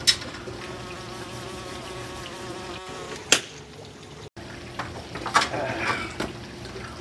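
A flying insect buzzing steadily for the first few seconds, then stopping, with several sharp knocks at intervals.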